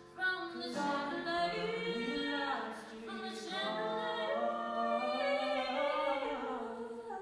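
A young woman singing long held notes into a microphone, sliding between pitches. The last note dies away near the end.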